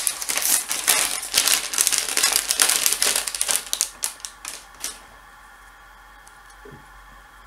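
Thin clear plastic bag crinkling and crackling in the hands as a small circuit board is pulled out of it. The crinkling stops about five seconds in.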